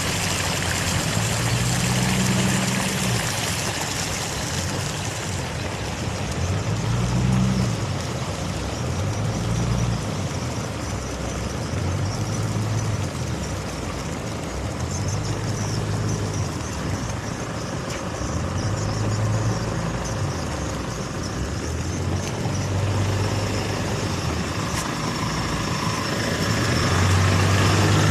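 Vehicle engine and road noise, steady throughout, with a low hum that swells and fades every couple of seconds.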